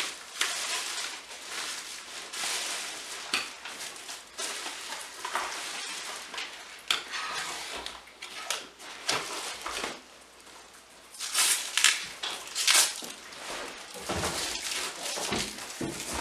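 Cardboard box and packaging being handled: irregular rustling and crinkling with scattered crackles, loudest about eleven to thirteen seconds in.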